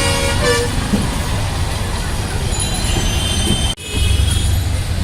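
Steady rumble of passing road traffic. It cuts out abruptly for an instant about four seconds in, then returns with a louder low engine rumble.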